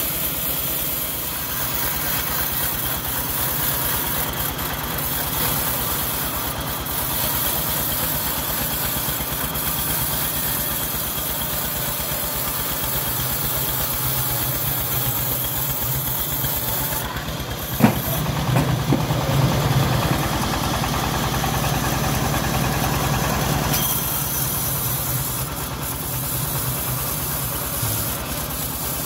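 A homemade bandsaw mill and its stationary engine run steadily while the blade rips a hard johar log. A sharp knock comes about two-thirds of the way through, followed by several seconds of louder running before it settles back.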